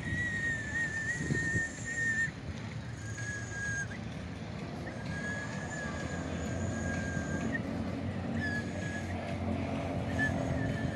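A high, steady whistle tone, held for about two seconds at first and then sounding again in several shorter stretches at a slightly lower pitch, over steady low street background noise.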